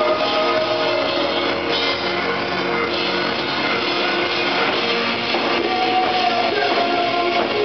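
Live rock band playing: electric guitar over a drum kit, loud and steady.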